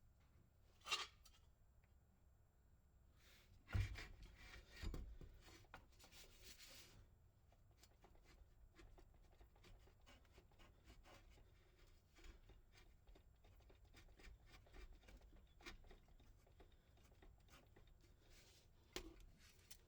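Faint, scattered clicks and clinks of hand tools and metal parts being handled during work under a car, with a few louder knocks about 1, 4 and 5 seconds in.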